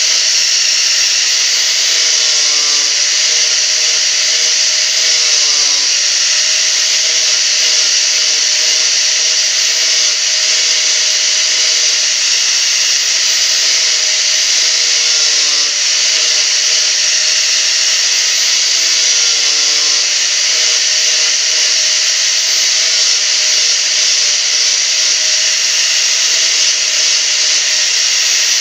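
Handheld electric angle grinder running without a break, its disc grinding away a small piece of wood, with a steady high motor whine. The pitch sags briefly several times as the disc bites into the wood.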